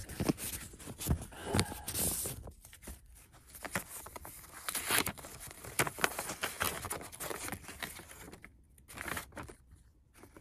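A paper envelope being opened by hand, with tearing and then paper rustling and crinkling as folded sheets are pulled out and handled. Irregular crackles throughout, growing sparser near the end.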